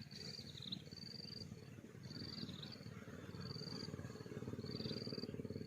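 A bird calling over and over with a short, high note about once a second, some notes dropping in pitch at the end, over a low steady rumble.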